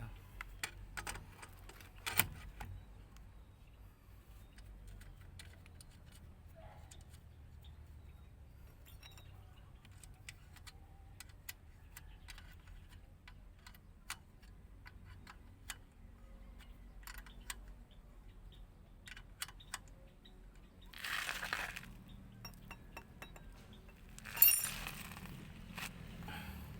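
Small metal parts and tools clinking and clicking as they are handled and set down, with a short scraping rustle about three-quarters through and a loud metallic clatter soon after.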